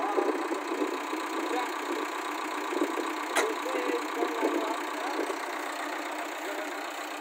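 JCB 3DX backhoe loader's diesel engine idling steadily, with a single sharp click a little over three seconds in.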